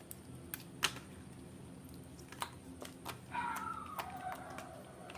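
Homemade slime being handled, giving scattered sharp clicks and small pops at irregular intervals. About three and a half seconds in, a short pitched call slides downward in the background.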